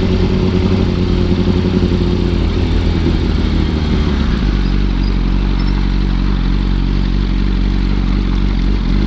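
2005 Yamaha R1's inline-four engine running under the rider, its note dropping about three to four seconds in and then holding as a steady low drone.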